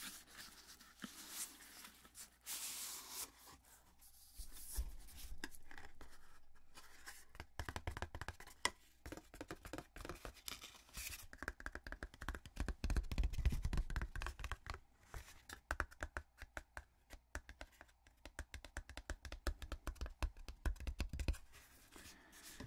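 Close-miked hands handling the speaker's packaging and paper manual: a short paper rustle about two seconds in, then a long run of quick, irregular fingertip taps and scratches on the packaging, with soft low thumps.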